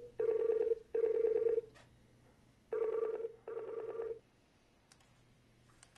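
Incoming video call ringing through computer speakers in a telephone-style double ring: two pairs of short trilling rings, each pair followed by a pause.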